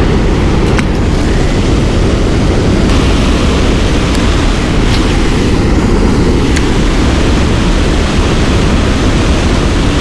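Steady rush of water pouring over a waterfall close by, a constant loud noise with a few faint clicks in it.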